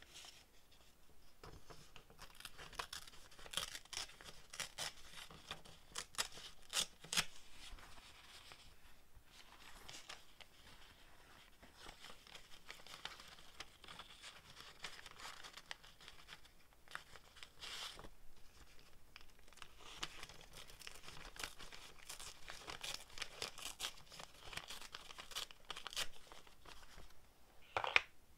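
Printed paper being torn by hand into small scraps: repeated slow rips with crinkling as the pieces are handled, and a louder crackle near the end.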